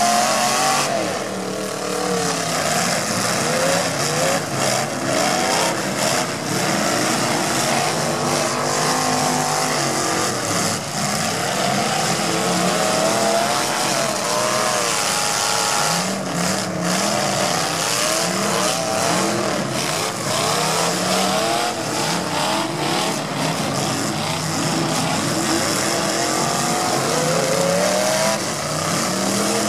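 Several demolition derby cars' engines revving hard at once, their pitch rising and falling as the cars push against each other and spin their wheels in deep mud. Scattered crunches of car bodies hitting one another come through the engine noise.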